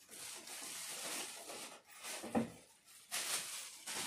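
Shiny foil gift wrap crinkling and rustling as it is pulled off a cardboard gift box, with one sharp knock a little past halfway.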